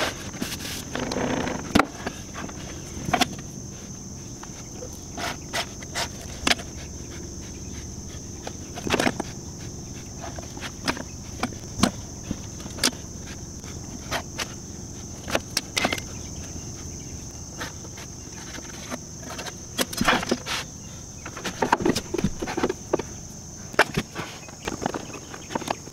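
Scattered sharp knocks and clacks of hardwood pieces and bar clamps being handled and set down on a workbench, coming irregularly and more often near the end, over a steady high-pitched drone.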